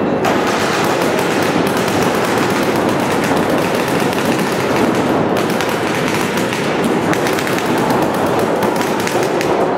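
Many paintball markers firing at once in rapid strings of shots, a dense, unbroken crackle of pops with no let-up.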